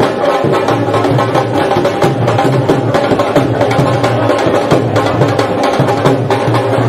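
Dhol drums beating a steady, fast rhythm of low booming strokes and sharp slaps.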